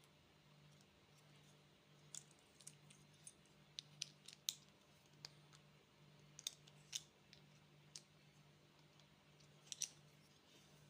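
Faint, scattered small clicks and crackles of candy packaging being handled and opened, in irregular clusters, over a low steady hum.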